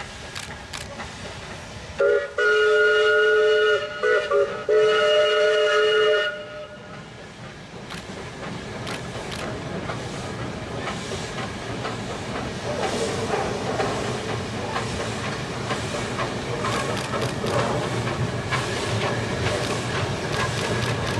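Myanmar Railways YC-class steam locomotive whistling: a long blast, two short toots and another long blast. Then the train rumbles onto a steel truss bridge, growing steadily louder, with wheels clicking over the rail joints.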